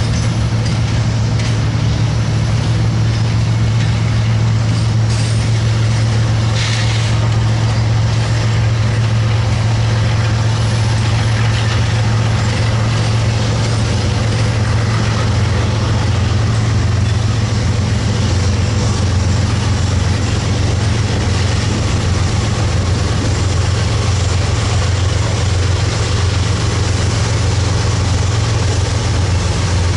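Diesel locomotive engine running with a steady, loud low drone, with a few sharp clicks in the first several seconds.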